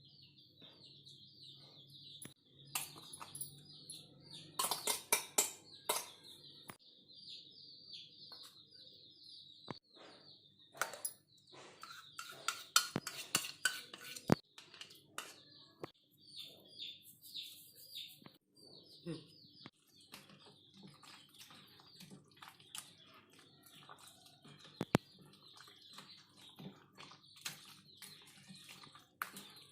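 Small birds chirping over and over in the background, with scattered sharp clicks and knocks, clustered most thickly about five seconds in and again around twelve to fourteen seconds.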